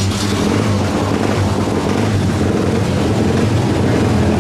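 Restored Henderson air-cooled inline four-cylinder motorcycle engine idling steadily, its pitch even and unchanging.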